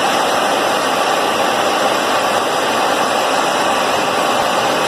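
Jet aircraft in flight: a steady, loud rushing noise of engines and airflow.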